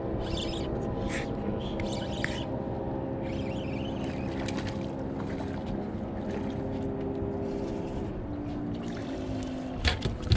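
Honda 200 four-stroke V6 outboard idling steadily, its pitch dropping slightly about eight seconds in, while a hooked fish splashes at the surface behind the boat. A couple of sharp knocks near the end.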